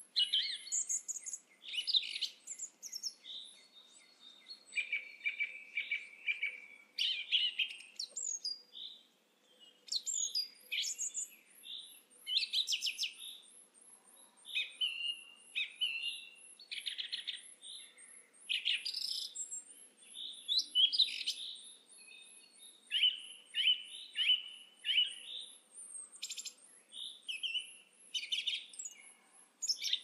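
Song thrush singing: a run of short, varied whistled and chirped phrases, many of them notes repeated several times in quick succession. A thin, high ticking trill runs faintly in the background.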